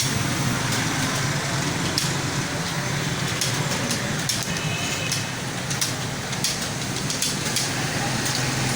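Computer keyboard being typed on: irregular, rapid key clicks over a steady low hum.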